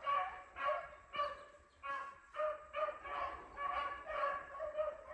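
Hounds baying on a rabbit's trail, a steady string of short calls at about two a second.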